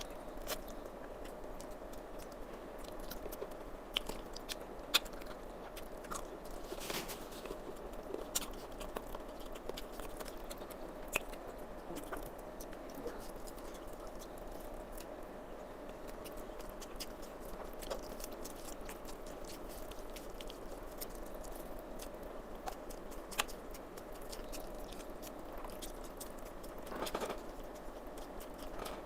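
Close-up chewing and eating sounds of a person eating rice and chicken curry, with scattered small wet clicks and smacks over a steady faint hum.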